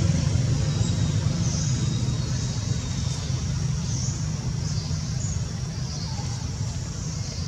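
Steady low rumble of outdoor background noise, with a few faint, short high chirps over it.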